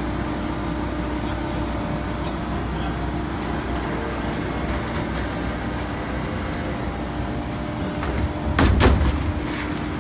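Steady hum and low rumble of a large industrial blow moulding machine running, with a short, loud double knock near the end.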